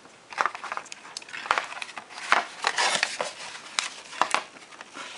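Plastic and cardboard packaging crinkling, with irregular clicks and rustles, as in-ear earbuds are taken out of their packaging.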